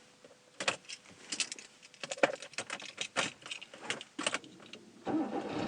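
Car keys jangling, with a run of short metallic clicks and clinks. About five seconds in, the car's engine cranks and starts.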